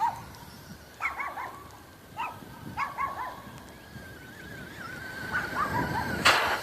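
A dog yipping and barking in short bursts, roughly once a second, over a thin, steady whine from the RC car's electric motor. A short, loud, noisy burst comes near the end.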